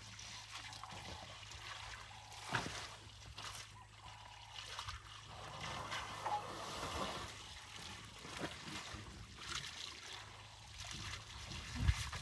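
Water trickling and splashing as an African elephant's trunk stirs and slaps at a small muddy pool, with a sharper splash near the end.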